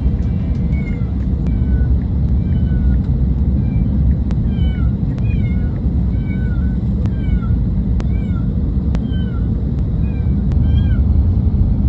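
Steady low rumble of an airliner cabin in flight, with short high chirping calls repeating about twice a second over it.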